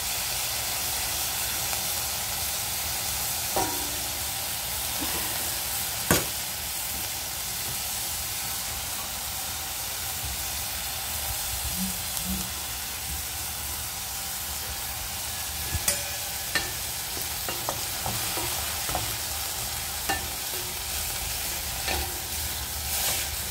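Diced bacon sizzling steadily in a hot pan, with occasional clicks and scrapes of a wooden spatula stirring it; one sharper knock about six seconds in.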